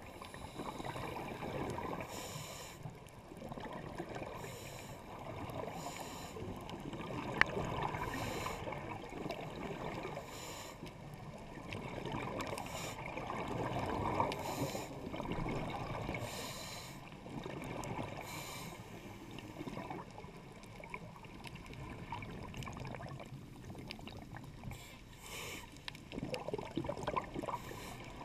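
Scuba diver's regulator breathing heard underwater through a camera's waterproof housing: a steady muffled water rumble, with a hissing burst of exhaled bubbles every couple of seconds. There is one sharp click about seven seconds in.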